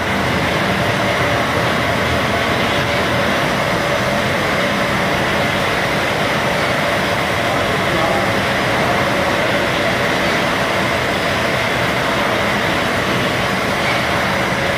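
Machinery of a maize puffs snack production line running steadily: motors, conveyor and a rotating drum make a constant mechanical noise with a faint steady whine.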